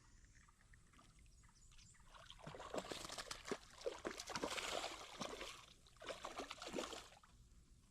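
Water splashing and sloshing in a string of short, irregular bursts, starting about two seconds in and dying away near the end.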